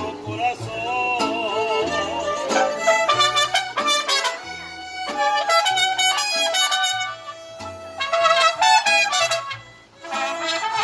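Mariachi band playing: violins with vibrato at first, then trumpets carrying the melody, over the guitarrón bass and vihuela strumming. The music breaks off briefly near the end.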